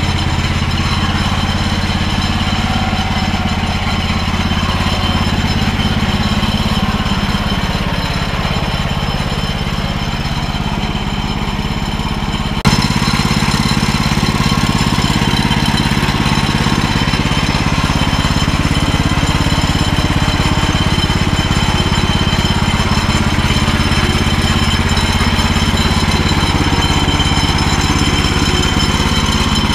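Woodland Mills HM130 bandsawmill's petrol engine running steadily under throttle, driving the band blade. The sound steps up abruptly a little under halfway through.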